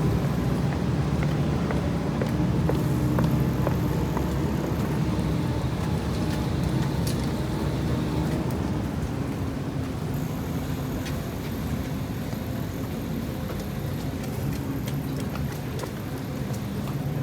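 Road traffic: car engines running with a steady low hum.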